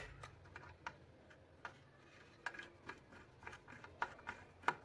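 Faint, scattered clicks and small scrapes of a screwdriver tightening a terminal screw on an electric iron's wire connections, with the sharpest click near the end.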